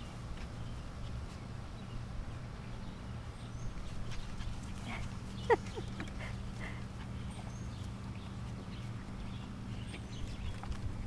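A Cairn terrier puppy gives a single short, high yip about five and a half seconds in, over a steady low hum and faint scattered ticks.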